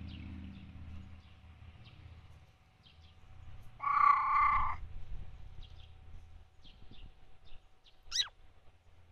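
A single loud animal call lasting about a second, a little before the middle, among faint scattered bird chirps; near the end a quick, sharply falling bird whistle.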